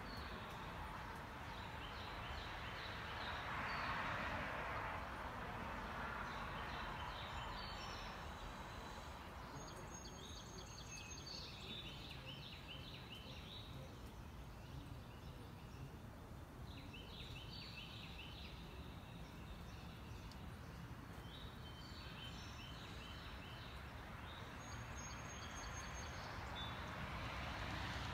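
Outdoor background noise with a steady low rumble, and a small bird singing short phrases of quickly repeated high notes every few seconds.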